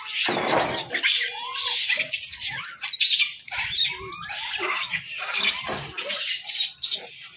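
A crowded troop of rhesus macaques calling over food: many short, high-pitched squeals and chatters overlapping one after another without a break.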